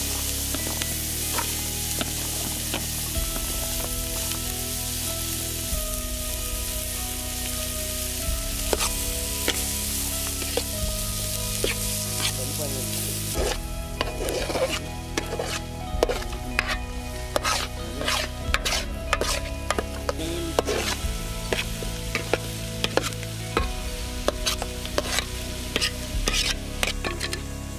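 Chopped onions sizzling in melted butter in a metal pot. From about halfway a metal ladle stirs them, scraping and clicking against the pot over the sizzle.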